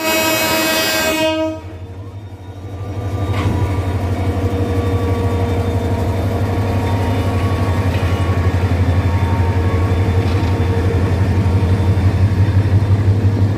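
Bangladesh Railway 2900-class diesel-electric locomotive blows a short horn blast of just over a second, then its diesel engine takes power to pull the train away, a loud low pulsing rumble that grows louder as the locomotive passes close by.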